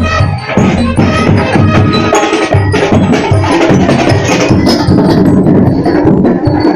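Marching drum and lyre band playing: bell lyres ring short metallic notes over a steady beat of snare and bass drums.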